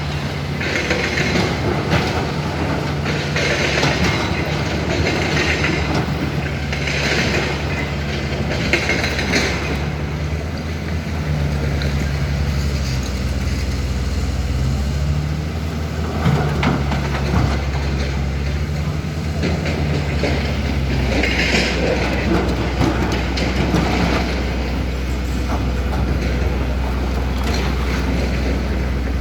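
Hyundai HX220L hydraulic excavator's diesel engine running at a steady pitch, with several brief higher-pitched noises from the working machine in the first ten seconds and once more about two-thirds of the way through.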